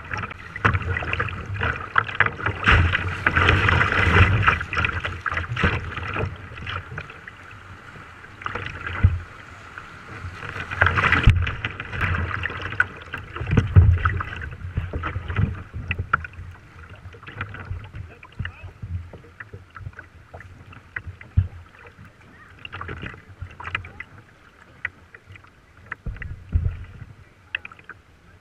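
River water splashing and rushing against a plastic kayak's hull as it rides choppy, fast current, louder in the first half.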